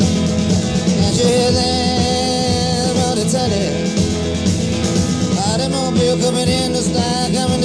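Live rock band playing an instrumental passage between sung lines: guitars, bass and drums, with a lead part that bends up and down in pitch.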